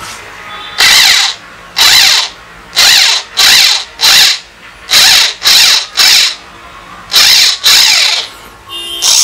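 Drill-driver running in reverse in about ten short trigger bursts, its motor whine rising and falling with each one, turning a screw extractor to back a broken bolt out of a washing-machine gearbox shaft.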